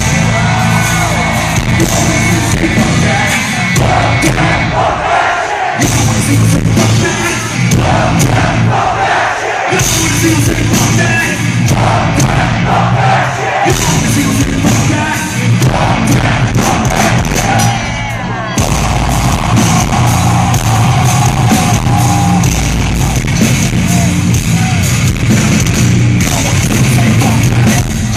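Live metal band playing loud, with heavy low end, vocals and a crowd yelling along, captured on a phone as a distorted, overloaded recording.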